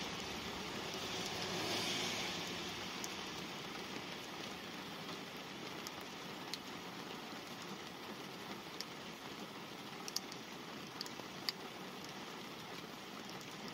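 Light rain pattering on a car's glass and body, heard from inside the car, with scattered sharper single drops. A passing vehicle's tyre hiss on the wet road swells and fades in the first few seconds.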